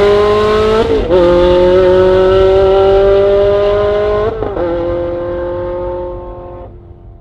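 Straight-piped Ferrari 360 Challenge V8 accelerating hard, its pitch climbing steadily with two quick upshifts, about a second in and about four and a half seconds in. The sound fades away over the last few seconds.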